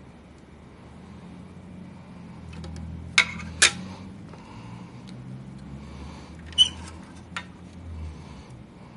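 Small hard parts and tools being handled on a work surface during graphics card disassembly. Sharp clicks and clinks come twice close together about three seconds in, then once loudly and once faintly about six and a half seconds in, over a low steady hum.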